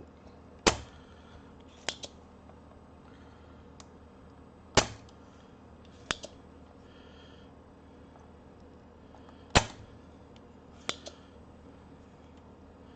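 Spring-loaded desoldering pump (solder sucker) firing with a sharp snap and being re-cocked with a softer click about a second later, three times over, pulling molten solder off a circuit board joint.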